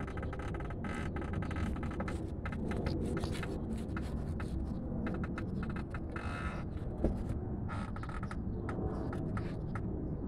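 Nissan Murano's 3.5-litre V6 running with a steady low rumble, with irregular short squeaky creaks and clicks over it.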